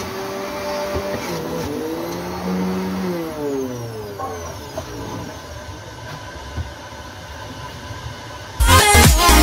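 Electric centrifugal juicer running on watermelon, its motor hum dipping and recovering in pitch as the fruit is pushed through, then sliding down in pitch as it winds down about four seconds in. Loud electronic dance music starts near the end.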